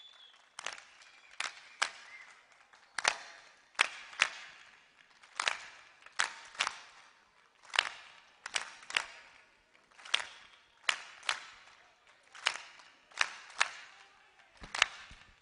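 Hand claps keeping a steady repeating rhythm for a traditional Tunisian folk song: one clap followed by two quicker ones, the pattern coming round about every two and a half seconds.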